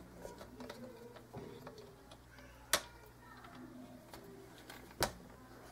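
Two sharp plastic clicks, about two seconds apart, over faint handling noise. They come from the plastic blade runner of a Fiskars paper trimmer being pressed and pried upward against the lip of its rail.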